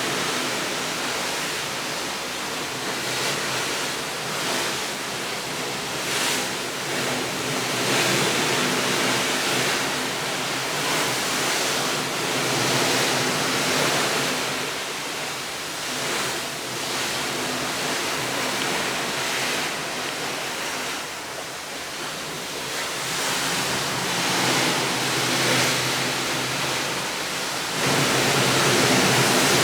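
Continuous rushing noise like falling water or surf, swelling and easing every few seconds and getting louder near the end.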